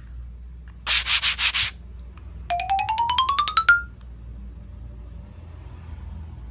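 Edited-in cartoon sound effects: a short scratchy rasp of about six quick strokes, then a fast run of short beeping notes climbing in pitch.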